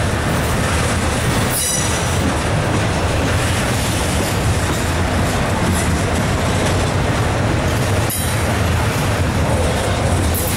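Double-stack intermodal freight cars rolling past with a steady loud rumble of steel wheels on rail. Brief high-pitched wheel squeals come about two seconds in and again about eight seconds in.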